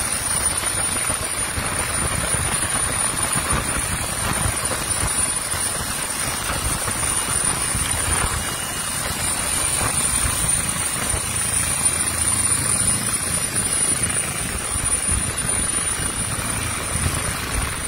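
Hovering helicopter heard from its open cabin door during a hoist rescue: rotor and turbine engine running steadily, with dense low rotor pulsing, rushing air, and a constant high turbine whine.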